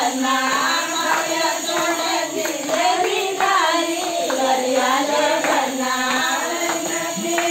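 A group of women singing a Rajasthani wedding folk song together, with hand claps.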